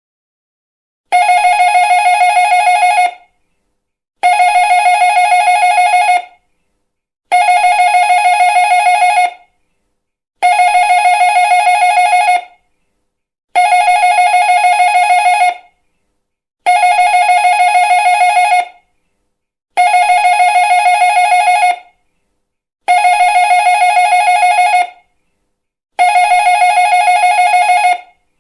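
Electric doorbell ringing in repeated bursts, played over and over. Each ring is a fast metallic trill about two seconds long, and the rings come about every three seconds, nine of them starting about a second in.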